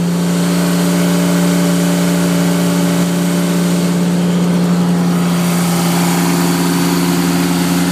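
A small engine running steadily with a constant hum, powering an HDPE butt fusion machine while the heated pipe ends are held pressed together to fuse.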